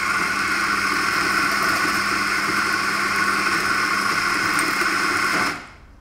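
Eureka Mignon electric burr grinder running a timed espresso dose, set to 8.2 seconds, with a steady motor whir that cuts off about five and a half seconds in.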